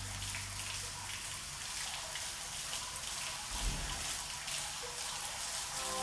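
Steady hiss of spraying or splashing water, with one dull thump about three and a half seconds in.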